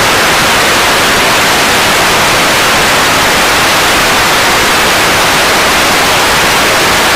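Loud, steady television static hiss: a TV-interference glitch sound effect.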